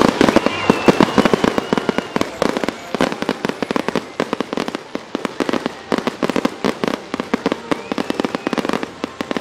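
Fireworks display: aerial shells bursting in a rapid, uneven run of bangs, the loudest right at the start.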